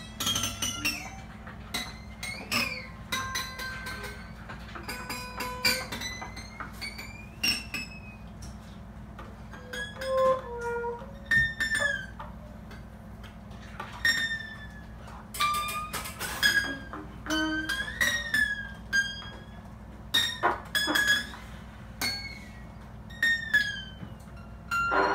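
Sparse free improvisation on acoustic guitar and trumpet: scattered short plucks, clicks and brief sliding high tones, with quiet gaps between them.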